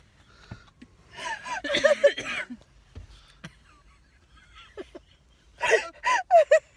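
A woman laughing hard to the point of tears, in two bouts: one starting about a second in, then a quick run of short laughs near the end.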